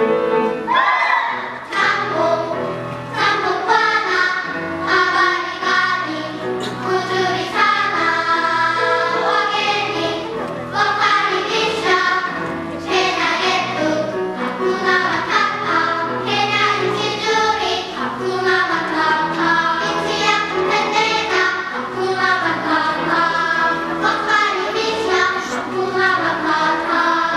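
Children's choir singing a lively song in unison and parts, with piano accompaniment.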